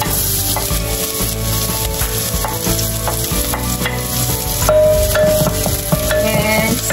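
Chopped garlic sizzling as it hits hot olive oil in a stainless steel pot, with a wooden spoon stirring it around.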